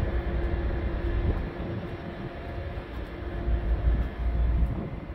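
Steady machinery hum from a car ferry, heard on its open upper deck, with a faint held tone over it. Wind gusts on the microphone, easing in the middle and picking up again near the end.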